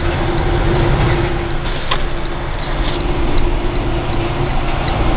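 Big-rig truck's diesel engine running, heard from inside the cab as a steady low rumble with a steady hum over it. A single click sounds about two seconds in.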